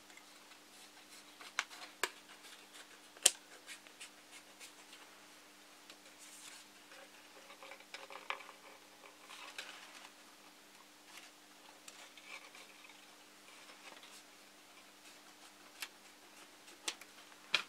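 Scissors snipping through a thin clear plastic canopy sheet: scattered sharp snips and clicks, the loudest in the first few seconds, then quieter scratchy crackles of the plastic as it is trimmed. A faint steady hum runs underneath.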